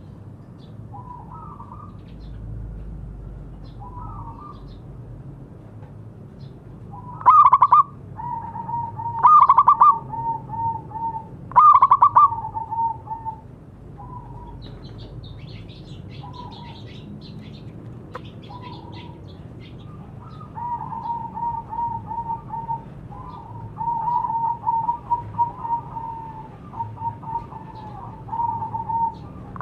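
Zebra doves (perkutut) cooing: phrases that open with a loud, sharp note and run into a quick string of short, even coos, three times in the first half, then long runs of rapid coos near the end.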